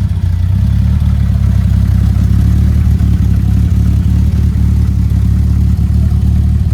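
Jeep engine running at a steady idle, loud and low with a fast even pulse.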